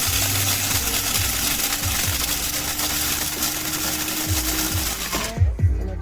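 Amazon Basics electric blade coffee grinder running, a dense whirring grind over a motor whine that climbs slightly in pitch, cutting off suddenly about five seconds in.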